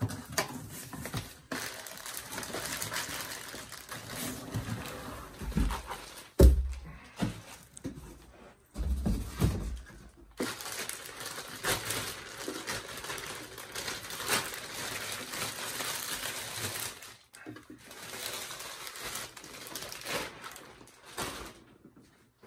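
Cardboard box flaps and packing being handled, and a plastic bag crinkling as it is pulled off a speaker cabinet, with several dull thumps, the loudest about a third of the way through.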